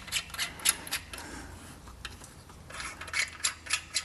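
Quick, evenly spaced metallic clicks, several a second, from hand work on titanium wheel studs at a car's wheel hub. They come in two runs with a quieter stretch between.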